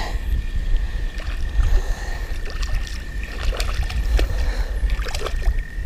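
A hooked bass splashing at the surface beside a kayak as it is reeled in, with scattered clicks and knocks from the spinning reel and hull over a low rumble of water and wind. A faint steady high whine sits underneath.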